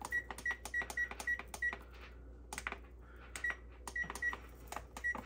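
Electric oven's control panel beeping as its buttons are pressed, short high beeps about three a second with a click at each press. They come in two runs with a pause of about two seconds between, and one more near the end. This is the oven's temperature setting being changed to 400 degrees.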